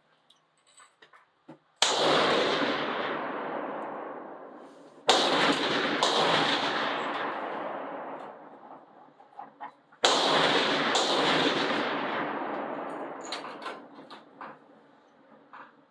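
Benchrest rifles firing on a covered firing line: five shots, the second and third and the fourth and fifth coming about a second apart. Each crack is followed by a long echo that fades over several seconds, with faint clicks in the quiet gaps.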